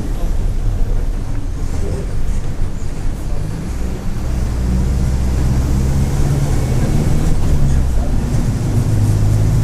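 Mercedes-Benz OF-1722M bus's diesel engine pulling under way, heard from on board; about four seconds in it grows louder and settles into a steady low drone.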